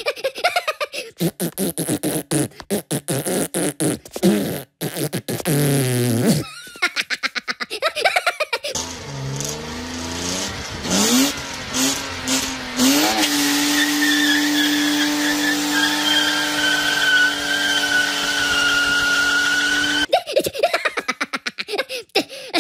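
Cartoon Minion laughter and gibberish for the first few seconds and again near the end. In between, a BMW E36 coupe's engine revs up in rising steps and is then held at high revs for about seven seconds.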